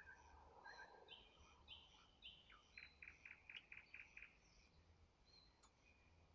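Thrush nightingale singing, faint: short whistled notes and brief trills, then a fast run of about eight sharp repeated notes, about five a second, in the middle.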